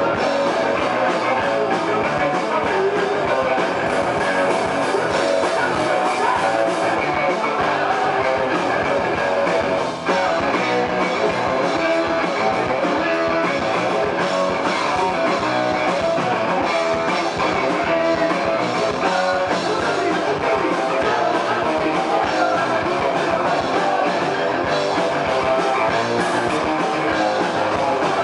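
Live rock band playing loud and dense, with an electric bass guitar and a drum kit, and a brief dip about ten seconds in.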